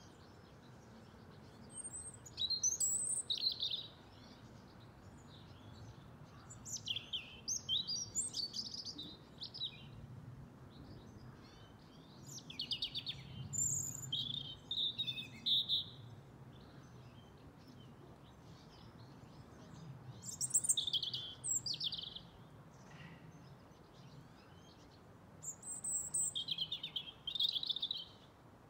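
European robin singing: five separate phrases of high, quickly varied, warbling notes, each a few seconds long, with pauses of a few seconds between them, over a steady low background hiss.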